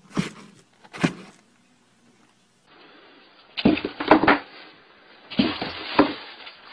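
A cat knocking against the inside of a cardboard box: two single thumps near the start, then two quick flurries of knocks a second and a half apart.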